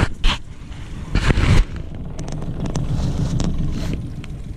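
Wind buffeting the microphone in a low, uneven rumble, with a few sharp knocks and a loud rush of noise about a second in.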